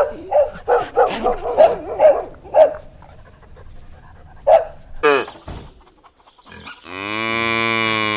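A dog barking, a quick run of about eight short barks, then after a pause two more single barks. Near the end a cow gives one long moo.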